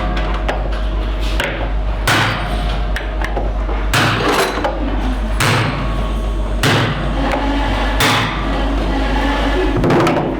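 Hammer blows on a laminated steel padlock, six heavy strikes at roughly one-and-a-half-second intervals with lighter knocks between, breaking the top laminate away from its riveted stack.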